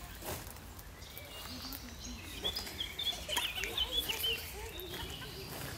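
Birds chirping in a quick cluster of short notes in the middle of the stretch, over a steady low background rumble.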